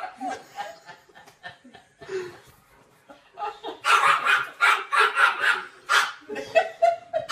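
People laughing in loud repeated bursts from about four seconds in, along with a dog barking.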